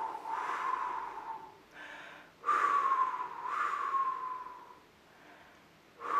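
A woman's high, drawn-out 'Hoooo woooo' made by mouth, imitating the howling wind of a snowstorm, each hoot sliding slowly down in pitch. One call trails off in the first second, a full 'Hoooo woooo' follows from about halfway through, and another begins near the end.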